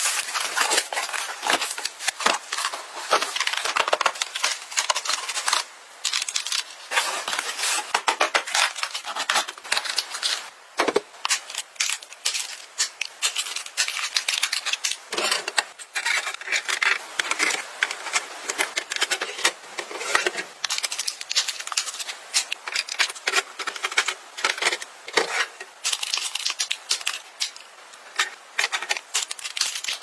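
Dense run of small plastic clicks, taps and rustles: contact-lens blister packs handled and set into a clear acrylic drawer organiser, with its small drawers pulled open.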